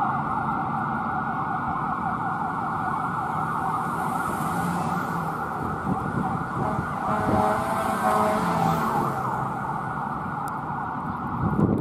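Fire engine siren sounding on an emergency response, sweeping up and down rapidly in a fast yelp. A steadier held tone joins it for a couple of seconds around seven seconds in.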